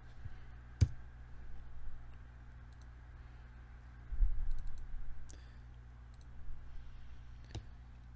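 Computer mouse and keyboard clicks during desk work: a sharp click about a second in and another near the end, with a few faint ticks between. A low thump comes a little past the middle.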